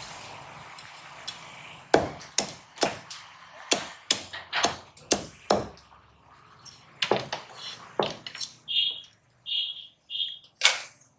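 Sharp chops of a large curved knife on a wooden chopping block as the legs and antennae are cut off a spiny lobster. After about two seconds comes a quick, irregular run of strikes, roughly two a second, then a few more, with a last chop near the end.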